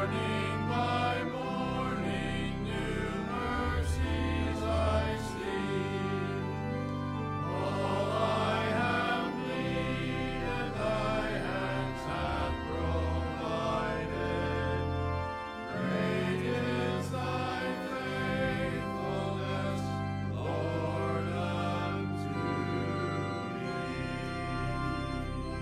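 A hymn sung by a choir or congregation over sustained keyboard accompaniment, with long held bass notes.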